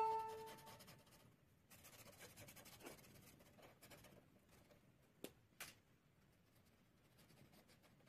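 Faint scratching of a felt-tip marker colouring on paper in quick short strokes, with a few soft ticks. The end of a music track fades out at the very start.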